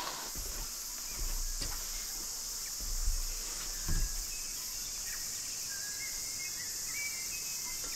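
Cicadas droning steadily in a high-pitched chorus, with a couple of soft thumps about three and four seconds in.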